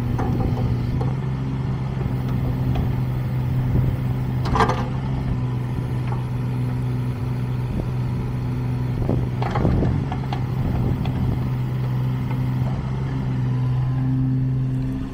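Kubota KX016-4 mini excavator's three-cylinder diesel running at a steady speed while the boom, arm and bucket are worked hydraulically. Short metallic clanks and creaks from the working arm come about four and a half seconds in and again around nine to ten seconds.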